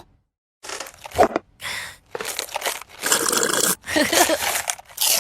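Bursts of crunching, crinkling noise that start after a brief silence and grow denser and steadier about three seconds in.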